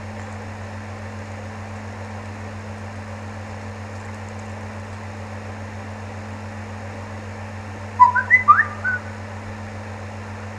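Several quick whistled chirps, rising and falling in pitch, about eight seconds in, over a steady low electrical hum and hiss.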